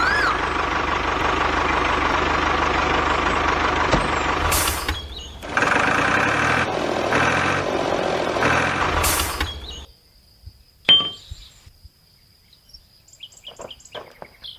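A vehicle engine runs loudly for about ten seconds, with a short dip and a change in sound around five seconds in. It then cuts off abruptly, leaving quiet with scattered light taps.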